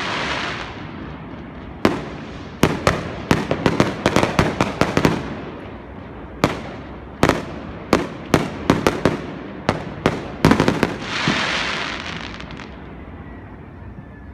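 Aerial fireworks bursting overhead: a long run of sharp bangs, some single and some in quick clusters, followed near the end by a stretch of hiss that fades as the display dies away.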